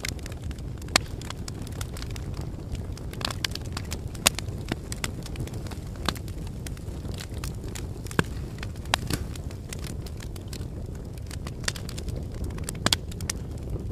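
Crackling fire sound effect: a steady low rumble of flames with scattered, irregular sharp pops and crackles.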